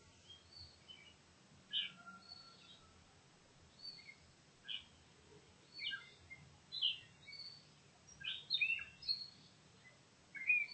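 Wild birds chirping in short, scattered high notes, several calls overlapping, over a faint steady background hiss.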